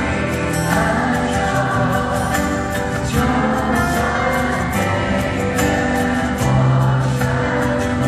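Male singer singing a pop song live into a microphone over amplified band backing.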